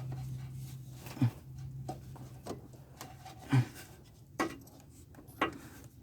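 Scattered knocks and clicks, about five in all, as a serpentine belt is worked by hand onto the pulleys of a 2004 Chevrolet Silverado with the engine off. A steady low hum stops about three and a half seconds in.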